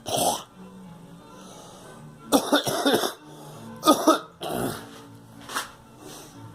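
A girl coughing in bouts: one cough at the start, a quick run of coughs a couple of seconds in, two more about four seconds in, and a last short cough near the end.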